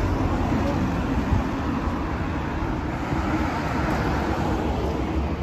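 Road traffic passing close by on a multi-lane city road: a steady rush of car tyres and engines.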